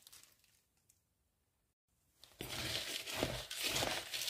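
Near silence for about two seconds. Then fine speculoos biscuit crumbs are mixed by hand with melted margarine in a plastic bowl: a dense, scratchy rustle with many small crackles.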